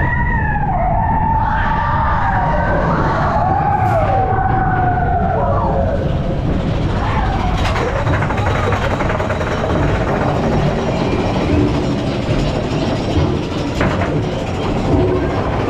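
Big Thunder Mountain mine-train roller coaster running along its track with a steady low rumble and rattle. For about the first six seconds, high wavering squeals glide up and down over it, then die away into the rumble.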